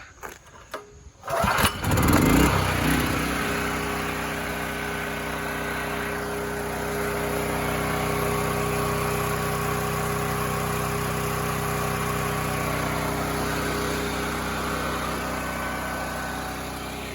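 Portable generator's small gasoline engine started about a second in, then running at a steady, even speed with no hunting, its carburetor cleaned and pilot jet opened up to 18 thousandths.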